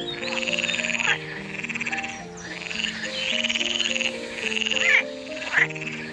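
Frog croaking in long trills, each about a second long and repeated, with a few sharp chirps near the end, over light background music.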